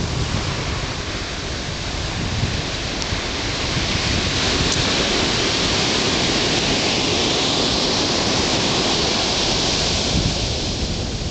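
Ocean surf on a beach: a steady wash of waves that swells for several seconds in the middle, with a ragged low rumble underneath.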